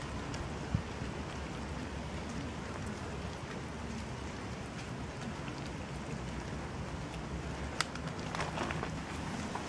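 Light rain falling steadily, an even patter, with a few sharp ticks near the end.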